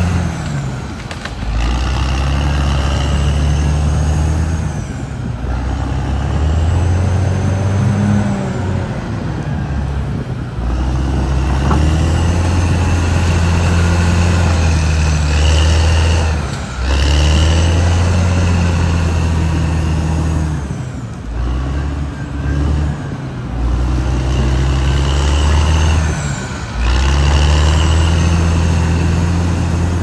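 Caterpillar D6R XL bulldozer's diesel engine working under load, its pitch stepping up and down and dipping briefly every five seconds or so as the machine works back and forth. A high whine comes and goes over it.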